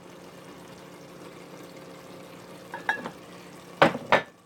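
Beef mince in tomato sauce cooking in a pot on the stove with a steady faint sizzle, while it is stirred; a utensil clinks against the pot once near three seconds in and knocks on it twice in quick succession near the end.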